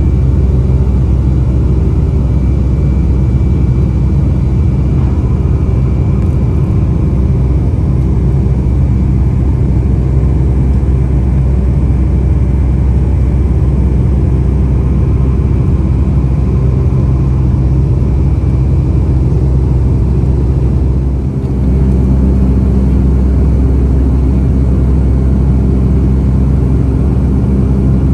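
Boeing 757-232 airliner's twin turbofan engines heard inside the cabin from a window seat during the climb after takeoff: a steady low drone with a hum. About three quarters of the way through there is a brief dip in level, after which the hum shifts slightly.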